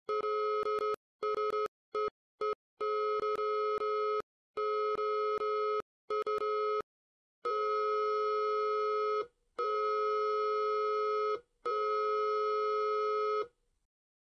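Electronic warning tone of two steady pitches sounding together, buzzy with many overtones, cut into irregular stuttering pieces for the first seven seconds, then held in three long blasts of about two seconds each with short gaps, stopping just before the end.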